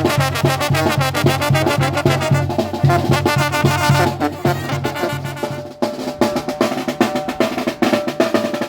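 Mexican brass banda playing: horns carrying the melody over a pulsing low bass line and drums. About six seconds in, the bass line drops out and the brass and snare drum carry on, with a drum roll.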